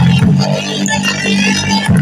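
A song playing loudly through a homemade Bluetooth speaker box with several small full-range drivers, with a steady low bass line under it.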